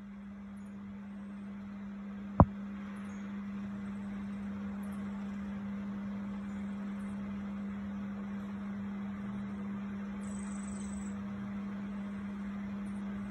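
A steady low machine hum with a hiss over it, and one sharp click a little over two seconds in.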